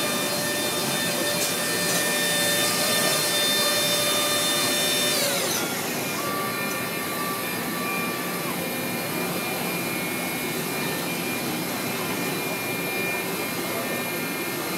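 Mazak Integrex CNC multitasking machine running during 5-axis machining: a steady mechanical noise with several high whining tones from its drives. About five seconds in, the whine drops in pitch as something slows, and a different steady tone sounds for a few seconds after.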